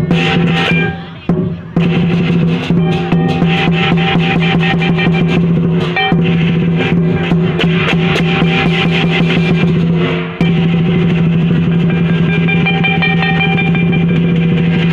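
Lion dance percussion: a drum beaten in fast rolls with clashing cymbals over a steady ringing tone. It breaks off briefly about a second in and again near ten seconds.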